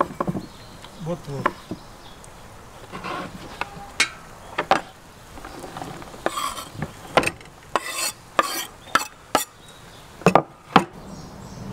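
A kitchen knife chopping cooked meat on a wooden cutting board in irregular sharp knocks. About six seconds in, the blade scrapes the diced meat off the board onto a plastic tray, followed by more sharp knocks near the end.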